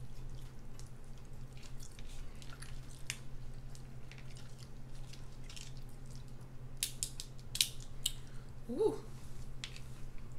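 Hard king crab shell being cracked and pried apart by hand: scattered sharp clicks and cracks, with a cluster of louder snaps about seven seconds in, over a low steady hum.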